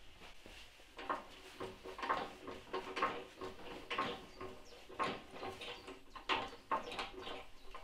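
Hydraulic trolley jack being pumped by its long handle to lift the car, a squeaky creak with each stroke, about two strokes a second.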